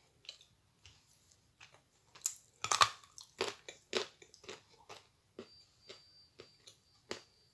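Close chewing and crunching of a chunk of Astana Ideal edible clay: a run of sharp, separate crunches as the clay breaks between the teeth, the loudest a little under three seconds in.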